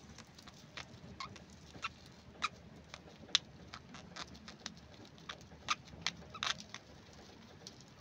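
Budgerigars giving soft, short chirps and clicks at irregular intervals, about a dozen in all, while the male is mounted on the female in mating.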